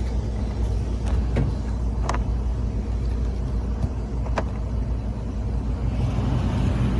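Steady low rumble of running machinery. A few sharp, lightly ringing metallic clicks come in the first half.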